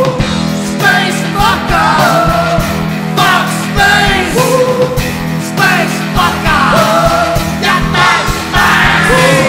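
Band playing live: a man singing over electric bass, electric guitar and drums, with steady drum hits under the vocal line.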